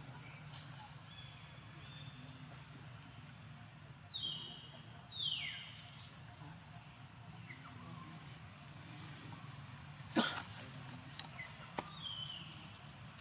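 A few short, high animal calls that drop in pitch, two plain ones about four and five seconds in and fainter ones later, over a steady low hum, with a sharp click about ten seconds in.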